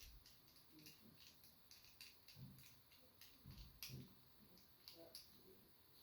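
Faint, irregular small clicks and taps as a picked lock is handled and its back screws are worked out to open it up.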